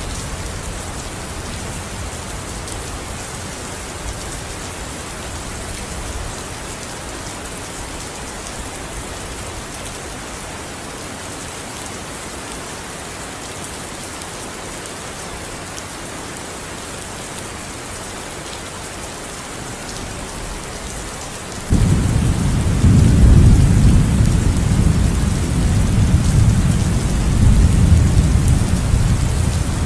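Steady rain falling. About two-thirds of the way through, a deep rumble of thunder starts suddenly and rolls on to the end.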